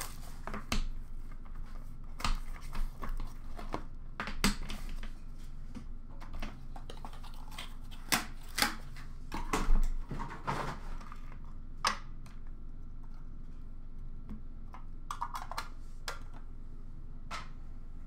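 A hockey trading-card box and its packaging being handled by hand: irregular rustles, taps and crinkles of cardboard and wrapper as the box is opened and the cards are taken out, busiest around the middle.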